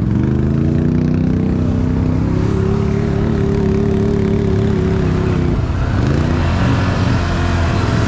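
Can-Am off-road vehicle engine revving up and held at high revs while working through a mudhole. About five and a half seconds in the revs drop sharply, then climb again.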